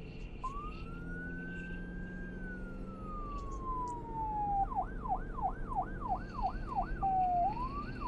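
Emergency vehicle siren: a slow wail that rises, then falls over about four seconds, before switching to a fast yelp of about three sweeps a second, with a short dip and rise shortly before the end.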